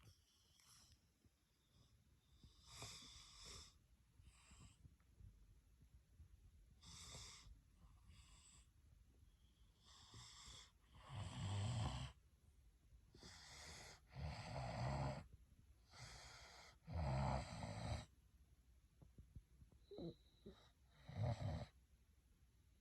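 Snoring: a series of separate breathy snores a second or two apart, faint at first and growing louder about halfway through, the loudest with a deep rattling rumble.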